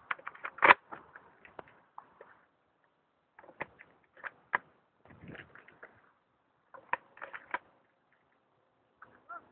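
Shotgun being handled and reloaded between shots: sharp mechanical clicks and clacks from the action and cartridges. A cluster comes in the first second with the loudest click, then scattered clicks around the middle and about three quarters through.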